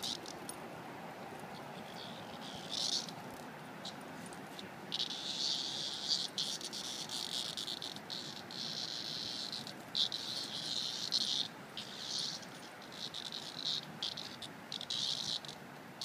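A cicada buzzing in irregular, broken bursts that start and stop abruptly, short at first, then long stretches through the middle: the stop-start buzz of a grounded cicada being nosed and pawed by puppies.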